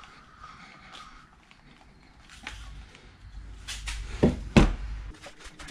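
Handling noise of a clear plastic hose inside a plastic cooler. Mostly quiet at first, then a low rumble in the second half with a few sharp knocks, the loudest about four and a half seconds in.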